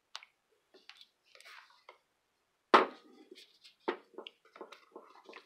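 Scattered metal clicks and knocks from the jack handle being worked off the release valve of a Torin Big Red hydraulic floor jack. The loudest knock comes nearly three seconds in, with another just before four seconds.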